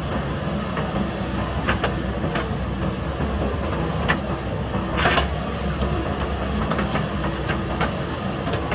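JCB backhoe loader's diesel engine running steadily under working load, with several sharp knocks and clanks as it digs concrete rubble. The loudest clank comes about five seconds in.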